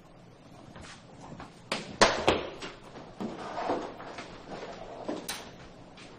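A few sharp knocks and clatters of objects being handled. The loudest come in a quick cluster about two seconds in, with another knock near the end.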